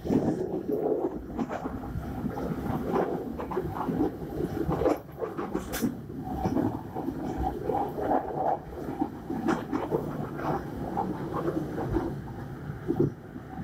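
Fajar Utama Yogyakarta passenger train running, heard from the rear vestibule of the last carriage: a steady rumble of wheels on rail with irregular clicks and knocks throughout.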